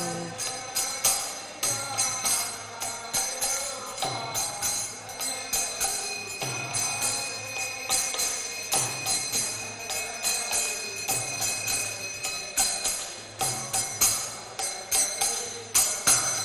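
Devotional kirtan music between sung verses of an aarti: hand cymbals and bells jingling and clashing in a steady rhythm over a drum beat, with no singing.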